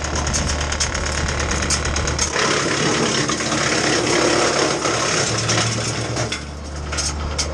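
Wood chipper running on pine branches, an engine's steady hum with sharp clicks of wood striking the machine throughout. From about two seconds in to about six seconds, a louder, coarse chewing noise covers the hum as a branch is fed through and chipped, then the hum comes back.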